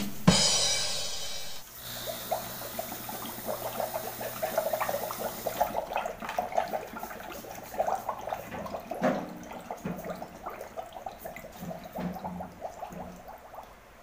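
A click, a short hiss, then irregular bubbling and gurgling as 141B flush solvent, gas and oil are forced out of a refrigerator's compressor discharge line into a bucket of water during a system flush. The bubbling fades toward the end.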